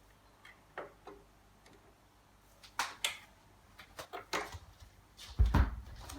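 Vinyl record lead-in: scattered clicks and pops of surface noise over a steady low hum, with a louder low thump near the end.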